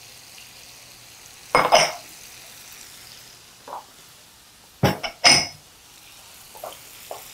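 Faint steady sizzle of lemon halves searing in a frying pan, with kitchenware clattering over it: a knock about one and a half seconds in, then two sharp clinks about five seconds in, and a few light clicks.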